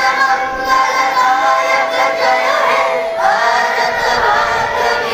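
A group of children singing together, one boy singing into a handheld microphone.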